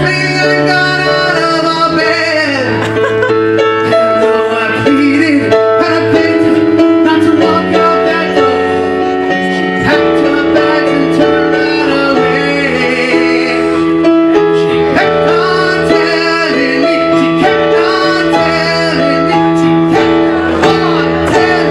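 Live music: a man singing into a microphone with electric keyboard accompaniment.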